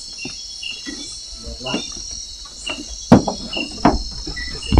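Night chorus of crickets and other forest insects: a steady high trill with short chirps repeating every half second or so. A few sharp knocks sound in the second half, louder than the insects.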